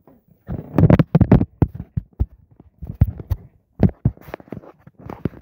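Handling noise close to a phone's microphone: an irregular run of knocks, taps and rustling scuffs, loudest in the first second and a half.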